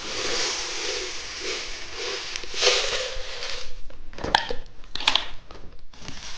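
Tiny candy sprinkles being poured out of their packaging: a continuous rattling hiss for about three and a half seconds, then a few sharp clicks and taps.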